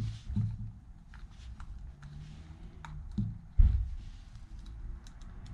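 Hands working a rubber seal into a brake caliper: scattered light clicks and handling noises, with a dull thump about three and a half seconds in.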